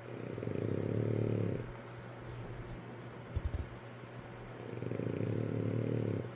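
Snoring: two long snores about four seconds apart, with a brief low thump between them.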